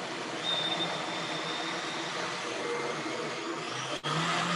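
Countertop blender motor running steadily as it purees a thick cashew cream. It drops out for an instant about four seconds in, then runs on.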